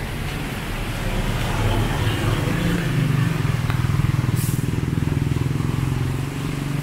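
An SUV drives past close by on a wet road. Its engine hum and tyre noise build, are loudest about four seconds in, and fade by the end, with a motorcycle following just behind and steady rain in the background.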